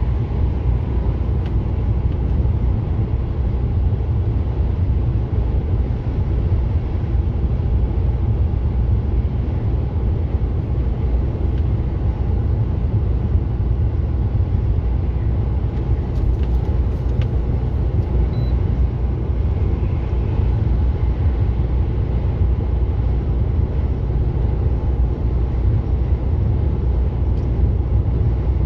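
Steady low rumble of a heavy truck cruising on a motorway: engine and tyre noise heard inside the cab.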